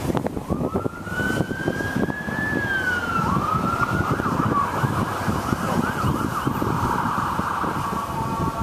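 Emergency vehicle siren: a wail that rises, holds, falls and rises again, then switches to a fast warbling yelp before settling into steady tones near the end.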